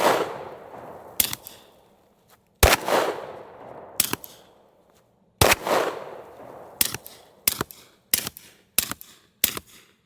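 A suppressed 10mm pistol firing subsonic 220-grain rounds, which have no supersonic crack. Three well-spaced shots each leave a long fading tail, then five quicker sharp reports come about two-thirds of a second apart. The shots sound good.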